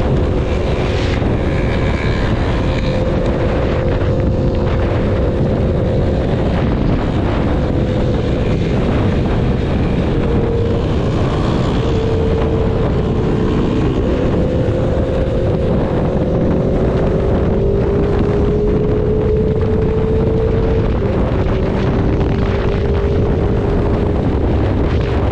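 Motorcycle engine running steadily on the move, its pitch creeping slowly upward in the second half, under heavy wind noise on the microphone.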